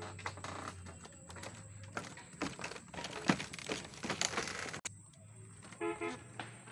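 Footsteps on a wooden-plank footbridge: irregular knocks and scuffs of two people walking down the steps. The sound cuts off suddenly about five seconds in, and a short pitched call follows.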